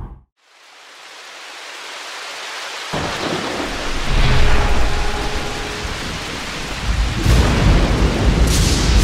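Rain-and-thunder sound effect. After a brief silence, a steady rain hiss fades in, and low rolls of thunder come in about three seconds in, growing heavier near the end.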